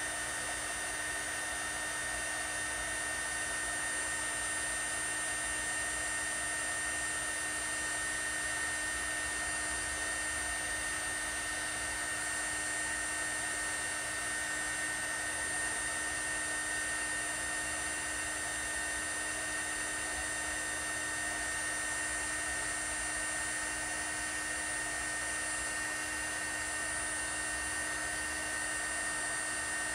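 Tacklife mini hot air gun running steadily, a fan whine over a rush of hot air. It is melting the solder and shrinking the tubing of a solder-seal wire connector.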